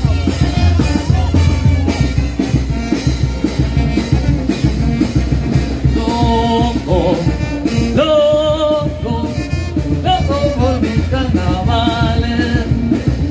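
Loud Latin dance music with a sung vocal over a steady drum beat.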